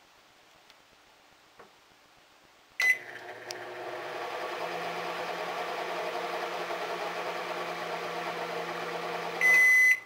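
Panasonic NE-E22A2 microwave oven started with a short button beep about three seconds in, then running with a steady hum, a lower steady tone joining a couple of seconds later. Near the end it gives a longer, louder beep and stops as it is cancelled.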